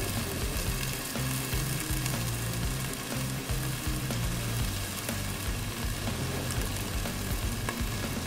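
Raw bacon strips sizzling steadily on a hot griddle over charcoal, as more strips are laid down on it.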